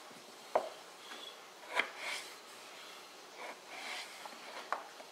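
Kitchen knife slicing a peeled raw potato into fry strips on a plastic cutting board: three sharp knocks as the blade meets the board, with soft scraping of the blade through the potato in between.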